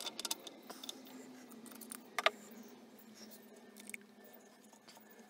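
Steel parts of a Holbrook lathe's feed reverse gear assembly being handled and fitted together: a few light clicks and scrapes, then one sharp metallic click about two seconds in as the dog clutch sleeve goes onto the shaft between the bevel gears.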